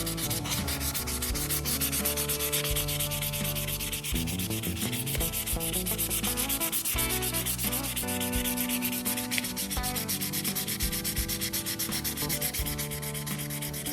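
A vintage Ka-Bar trapper pocketknife being hand-sanded with fine-grit sandpaper, in quick, steady back-and-forth strokes that make an even scratchy hiss.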